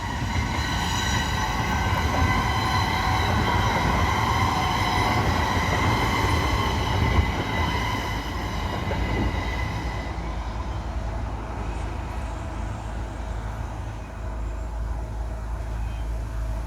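A large vehicle moving slowly, with a steady low rumble and a high whining squeal that fades out about ten seconds in.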